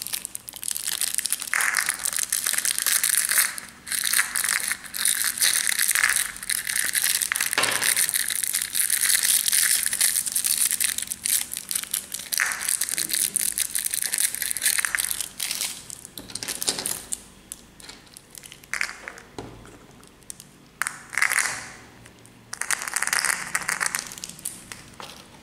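Thin clear plastic candy wrapper crinkling as fingers squeeze and work it, in long bursts with short pauses.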